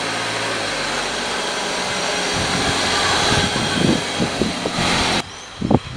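A car driving by: a low engine hum under a loud, steady rush of road and wind noise, which cuts off suddenly about five seconds in.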